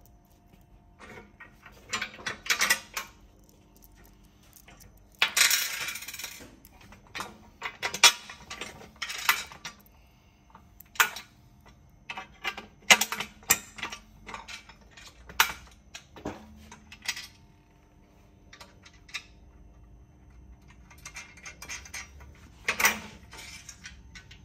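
Bolts, washers and nylock nuts clinking against the steel nose cone bracket and bike channel of an e-bike carrier as they are fitted by hand: scattered metallic clicks and clinks in short clusters, with a longer metallic rattle about five seconds in.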